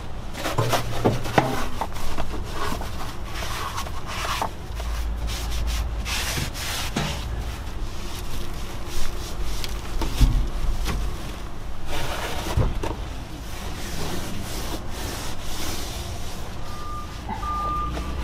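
Gloved hand wiping down surfaces inside a truck cab with a paper wipe: rubbing and rustling with scattered light knocks. Near the end a vehicle's backup beeper starts, sounding evenly spaced beeps.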